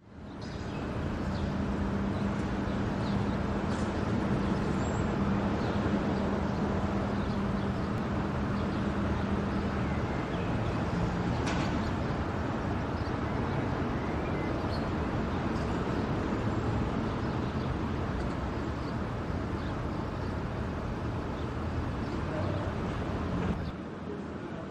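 City street ambience: a steady hum of distant traffic, with a low steady drone for the first ten seconds and a few faint high chirps. It drops down a second or so before the end.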